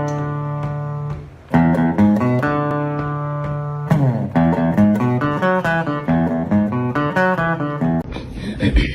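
Background music on guitar: held plucked chords, then a quicker run of plucked notes, stopping about eight seconds in.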